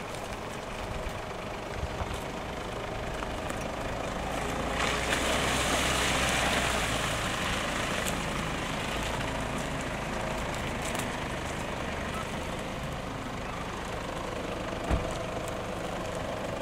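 Four-wheel-drive vehicles' engines running as they drive slowly along a dirt forest track. The sound swells for a few seconds about five seconds in, as one drives close past, then settles. There is a single sharp knock near the end.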